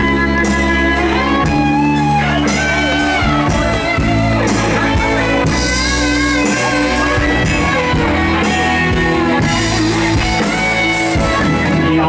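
Rock band playing live through a concert PA: an electric guitar plays a lead line with bent, wavering notes over bass guitar and drum kit.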